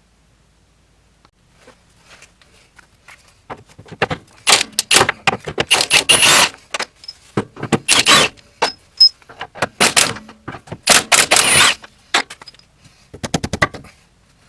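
Impact wrench hammering in a series of rattling bursts, about six of them, each up to a second and a half long, loosening the bolts of a car's control arm, after a few light clicks of tools.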